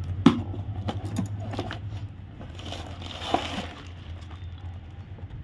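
Cardboard parts box being opened and handled, with a few sharp clicks and scrapes, then crinkling of the plastic bag inside about three seconds in, over a low steady hum.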